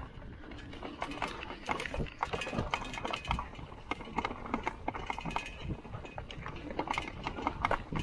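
Lectric XP e-bike jolting over rough dirt ground, with an irregular run of knocks and rattles.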